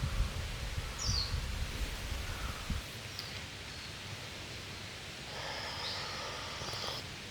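Outdoor ambience: a steady rustle with a low rumble that eases off about three seconds in, and a few short high chirps like birds.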